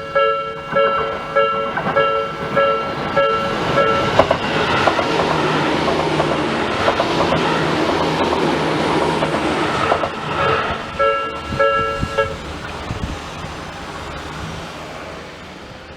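Tobu Noda Line level-crossing alarm, a Nikko-type electronic bell with a long, slow-decaying ring, striking about one and a half times a second while a train passes over the crossing with a rush of noise and clatter from about four seconds in. The alarm stops about twelve seconds in and the train noise fades away.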